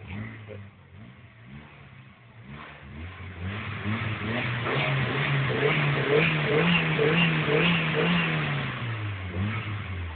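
Opel Vectra A 2.0's four-cylinder engine through an aftermarket HKS exhaust, revved up from idle about three seconds in. It holds at higher revs for several seconds with the pitch wobbling up and down, then drops back to idle near the end.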